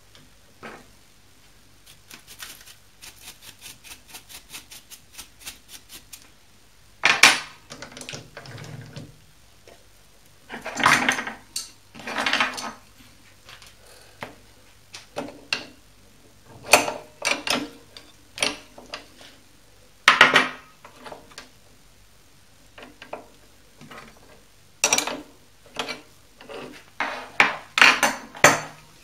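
Metal clinks and clatter of hand work on a stopped mini lathe set up for milling: tools and parts knocking against the steel slide, chuck and aluminium swarf, in irregular sharp knocks. A run of light, even ticks, about three a second, starts about two seconds in.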